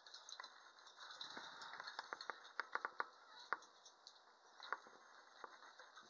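Budgerigar's beak pecking at its food: a run of sharp, light clicks, close together from about two to three and a half seconds in, then a few scattered ones.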